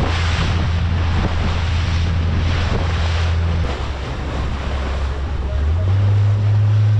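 Outboard motor of an open panga running at speed with a steady low drone, over rushing water from the wake and wind on the microphone. The engine note drops a little just before the middle and comes back higher near the end.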